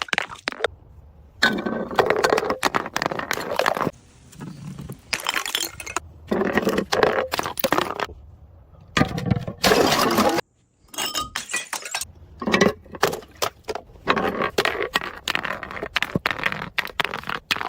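Glass bottles smashing several times in a row, each crash lasting a second or two and a few seconds apart, with short sharp clicks of glass between.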